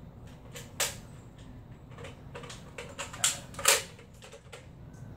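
Plastic clicks and rattles of a toy Nerf blaster being worked by hand: a handful of separate sharp clicks, the loudest two a little after three seconds in, with no dart shot.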